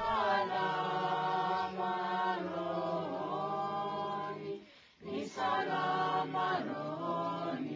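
A group of voices singing long held notes together, choir-like, breaking off briefly about five seconds in before starting again.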